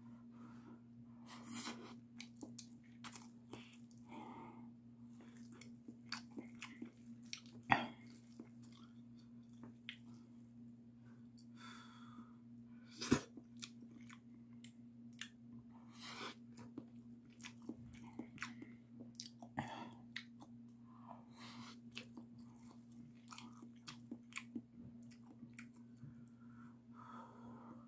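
Close-up chewing of Paldo Bibimmyeon cold spicy mixed noodles, with short sharp clicks scattered throughout. Two louder knocks come about 8 and 13 seconds in, over a steady low hum.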